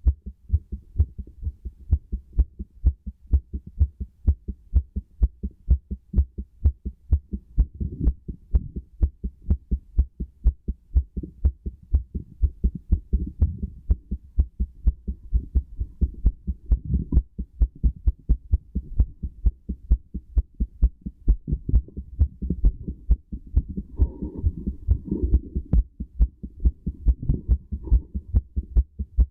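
Human heartbeat heard through a stethoscope: a steady, regular run of low thumping beats. A few brief patches of rubbing noise lie over the beats now and then.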